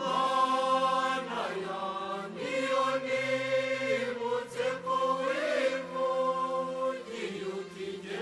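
Background music of chanting, choir-like voices holding long notes, growing louder at the very start.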